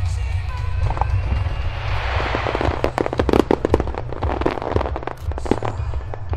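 Aerial fireworks bursting into crackling stars: a rising hiss about two seconds in, then a dense run of sharp crackles and pops for about three seconds, over a steady low rumble.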